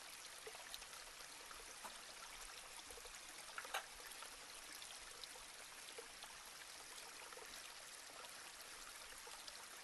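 Near silence: a steady faint hiss of room tone, with a few faint clicks, the clearest about three and a half seconds in.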